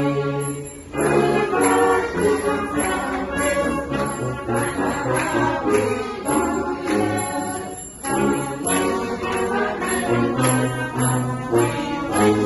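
Salvation Army brass band playing sustained chords, with trombones among the instruments. The phrases break briefly about a second in and again about eight seconds in.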